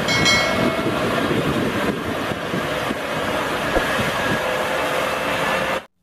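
Large mobile crane truck's diesel engine and machinery running steadily, with a brief high whine in the first second.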